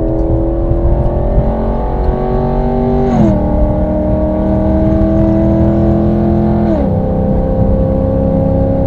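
Chevrolet SS (Holden Commodore VF) 6.2-litre LS3 V8 pulling steadily under light acceleration. The revs climb slowly, then drop as the automatic gearbox shifts up about three seconds in and again about seven seconds in.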